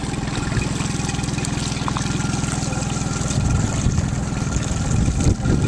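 Boat motor running steadily at low speed with an even low hum, over a steady hiss of water against the hull. There are a couple of louder low swells around the middle and near the end.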